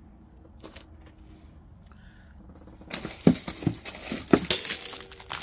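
Crinkling and rustling of a brush-wipe pack and a wipe being handled and rubbed across the tabletop. It starts about three seconds in, after a quieter stretch with one light tap.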